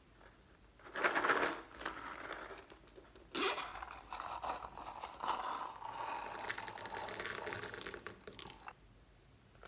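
Zipper of a silicone coin purse being worked open, with crinkly rasping and rubbing as the purse is handled: a short burst about a second in, then a longer stretch that stops near the end.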